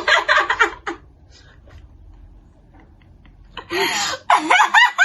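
Young women's voices: a burst of high-pitched, sliding vocal cries, a lull of about two and a half seconds, then another high, excited burst near the end.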